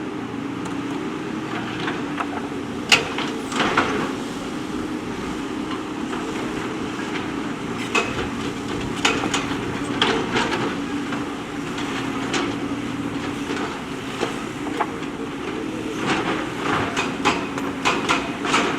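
JCB backhoe loader's diesel engine running steadily under work, with scattered sharp metallic clanks and knocks from the bucket and stones.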